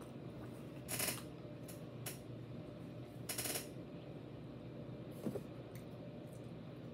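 Mouth sounds of a person eating pizza close to the microphone: two short, noisy smacks or breaths, about a second in and just past three seconds, with a light click a little past five seconds, over a steady low room hum.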